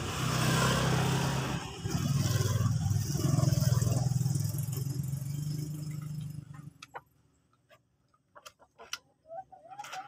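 Motorcycle engine passing on the road, a steady hum that fades away about seven seconds in, followed by a few small clicks and scrapes.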